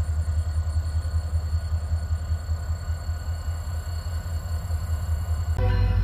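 EMD SD40-2 diesel locomotives approaching under power: a steady, low engine rumble with a slight pulse.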